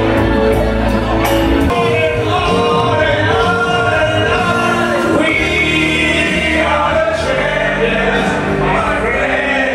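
Music with singing.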